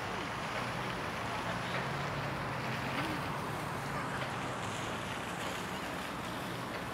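Steady outdoor ambience: an even, wind-like hiss with a faint low hum underneath.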